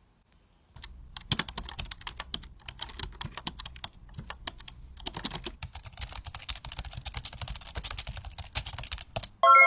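Computer keyboard being typed on, a quick irregular run of key clicks. A brief, loud pitched tone cuts in near the end.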